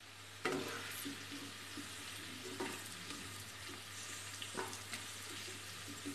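Hot oil sizzling faintly in a kadai of freshly fried onion and capsicum, the burner just switched off. A wooden spatula scoops the pieces out, with a few brief scrapes against the pan.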